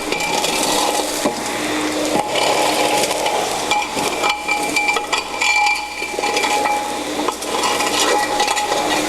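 Ruwac 220-S DuoVac industrial vacuum running with a steady rushing hiss as loose trash (leaves, rags, cans) clatters and rattles up its 4-inch hose. A faint whine cuts in and out several times as the suction load changes.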